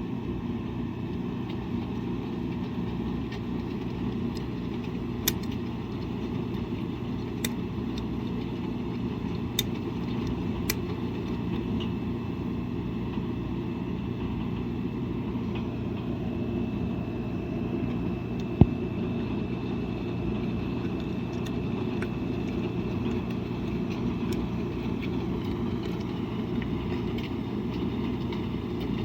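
Washing machine running: a steady low hum, with a few sharp clicks or knocks scattered through it. The loudest knock comes about two-thirds of the way in.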